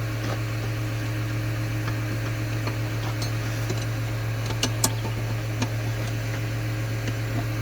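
An engine idling steadily with a low, even hum, under scattered light metallic clinks of a hand wrench on a loose nut and fitting.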